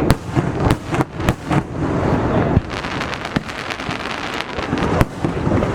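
Aerial fireworks going off at close range: irregular sharp bangs over a continuous rumble, with a quick run of crackling in the middle.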